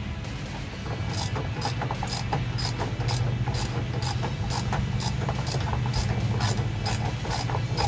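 Hand socket ratchet clicking in a steady rhythm, about three clicks a second, as a seatbelt anchor bolt is run in; the clicking starts about a second in. A steady low hum runs underneath.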